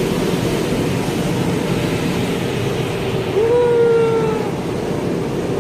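Automatic car wash working over the car, heard from inside the cabin: a steady, loud rushing of water spray. A brief hum of about a second comes about three and a half seconds in.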